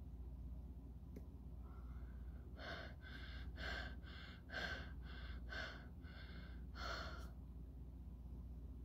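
A person breathing hard in a run of short, rapid gasps, about two a second, through a layer of slime pressed over the face and mouth.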